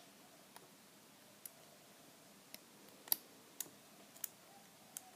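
Lock pick and tension wrench clicking faintly in an American Lock all-brass round padlock as the pins are worked: about seven small, irregular clicks.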